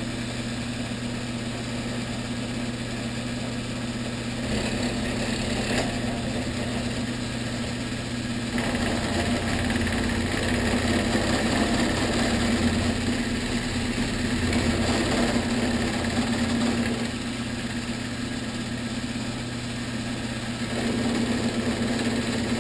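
Vertical milling machine running with its spindle turning and a cutter working a hole in a metal block: a steady motor hum that grows louder and busier a few seconds in and again about a third of the way through, eases off later, then picks up again near the end as the cut goes on.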